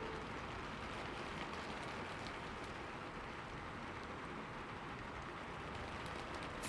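Soft, steady fire-crackle ambience: an even hiss with faint scattered pops.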